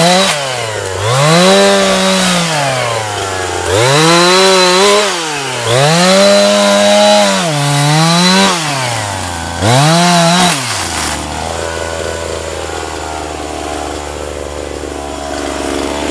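Petrol chainsaw revving up and dropping back in about half a dozen short bursts as it cuts through low brush and saplings. About eleven seconds in, it settles to a steady idle.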